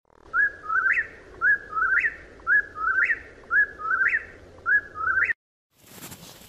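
Whip-poor-will singing its three-part whistled 'whip-poor-will' song five times, about one call a second, each ending in a rising note. The song cuts off suddenly about five seconds in, and faint outdoor noise follows.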